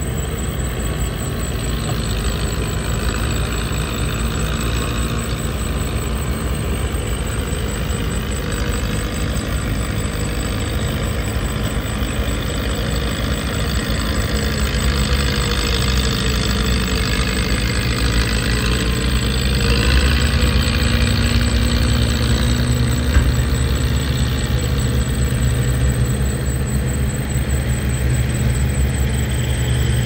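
Komatsu bulldozer's diesel engine running while pushing sand, with a steady low drone that grows louder about halfway through, then one sharp knock a little later.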